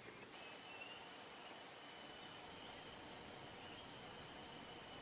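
Insects droning steadily in one high, even tone over a faint background hiss.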